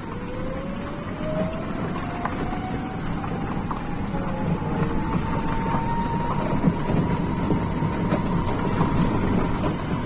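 A motor vehicle running along a road as it picks up speed: an engine whine rising in pitch over the first six seconds, then holding steady, over rumbling road and wind noise with scattered rattles.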